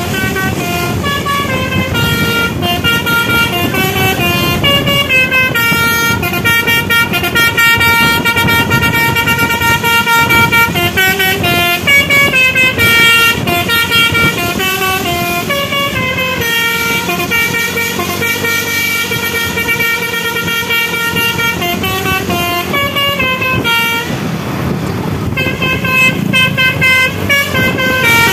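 Basuri telolet musical horn on a tour bus playing a tune in held notes that step from pitch to pitch, with a brief break about four seconds before the end. Road and engine noise runs underneath.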